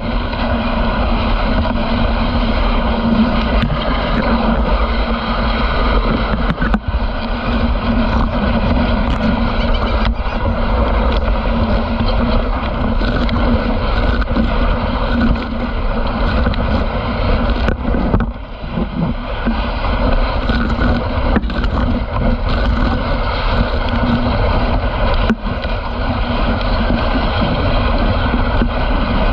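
Steady rushing noise of a dog sled gliding along a packed snow trail: the runners hissing over the snow, mixed with wind on the microphone. It dips briefly three times.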